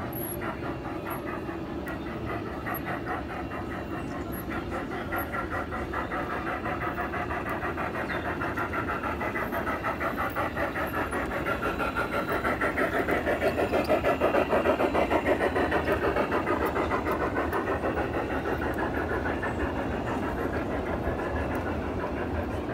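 A 1:20.3-scale model train running past on its track, a fast, even mechanical clatter that grows louder toward the middle and then fades away.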